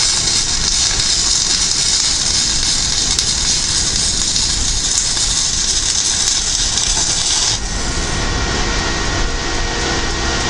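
Stick (arc) welding on a steel tow-hitch tube: the electrode's arc crackles and sizzles steadily for about seven and a half seconds, laying a first weld pass, then breaks off, leaving a steady low hum.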